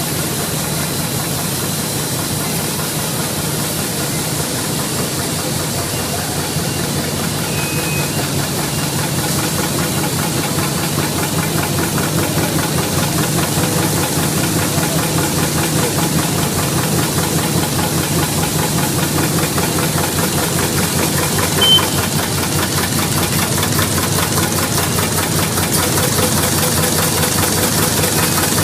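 Side-seal plastic bag making machine running at production speed: a steady, fast mechanical clatter from its repeating seal-and-cut cycle. A brief high tone sounds once, about two-thirds of the way through.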